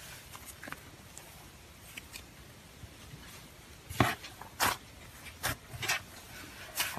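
Fluffy slime squeezed and pulled apart by hands: faint crackling at first, then from about four seconds in a run of about five sharp, loud crackling pops.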